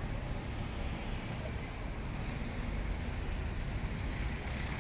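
Steady street background noise: a continuous low rumble of traffic, mixed with wind on the microphone.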